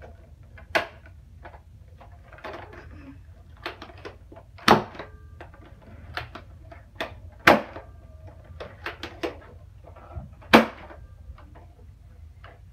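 Plastic clicks and clacks of a Nerf foam-dart blaster being handled, primed and fired, with four louder sharp clacks spread a few seconds apart among smaller ones.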